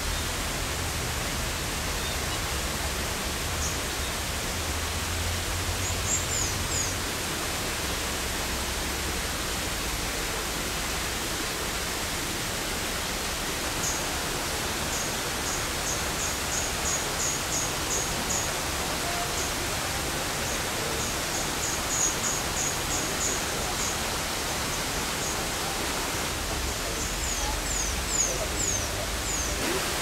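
Steady rush of falling water, with small birds giving thin, high chirps in quick runs several times.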